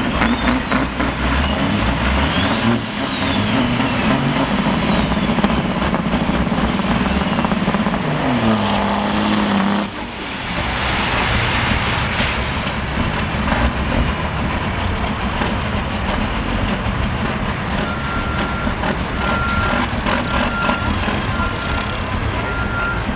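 Big-rig diesel truck engines revving hard during a burnout, their pitch rising and falling over the first ten seconds, then running steadily loud. Near the end a reversing alarm beeps in an even rhythm over the engines.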